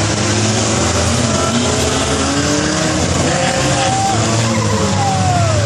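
Figure-8 race cars running loud and steady on the track. From about three seconds in, tyres squeal in several falling glides as a car spins and smokes its tyres.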